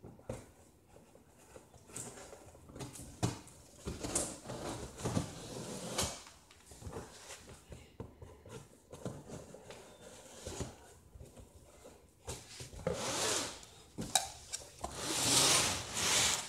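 A knife cutting and scraping through the packing tape and cardboard of a large shipping box, with sharp clicks and knocks between the strokes and two longer scraping swells near the end.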